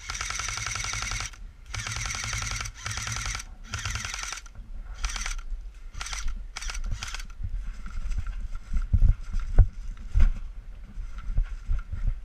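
Airsoft gun firing on full auto: four long bursts of rapid, even shots in the first four seconds or so, then several short bursts. After that come a few irregular low knocks.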